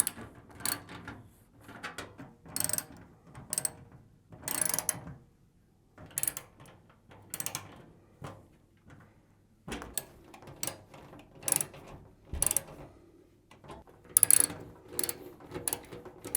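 Ratchet handle with a 7mm socket clicking in short repeated bursts as screws are driven back in to refit a washing machine's back panel, with a couple of brief pauses between screws.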